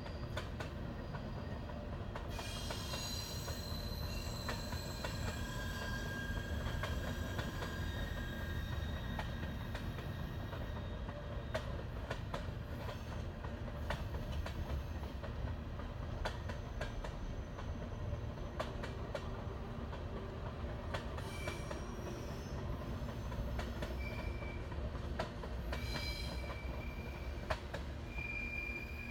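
Canadian Pacific train cars rolling by: a steady rumble with frequent wheel clicks over the rails, and high-pitched wheel squeal twice, a few seconds in and again past the twenty-second mark.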